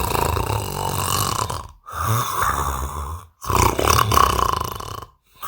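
A man snoring loudly in repeated rough, rumbling strokes about every second and a half, each one cut off abruptly.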